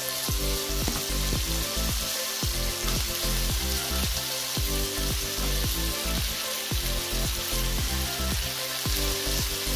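Brinjal pieces frying in hot oil in a wok: a steady sizzle as they are stirred with a wooden spatula. Background music with a regular beat plays under it.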